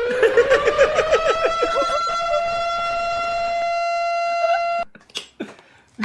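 A man's voice holding one long, loud note that rises in pitch over about the first two seconds and then stays steady, cutting off suddenly just before the five-second mark.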